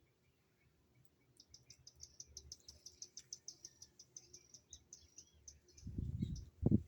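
A bird singing a fast trill of short high notes, about seven a second, that stops after a few seconds. Near the end come a low rumble and a sharp low bump, louder than the song.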